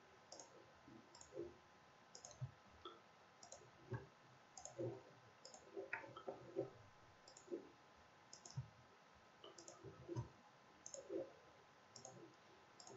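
Faint computer mouse clicks, roughly one a second and irregular.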